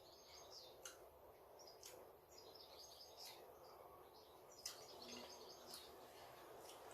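Faint bird chirping in the background, in short twittering bursts, with a few soft clicks, over low room noise.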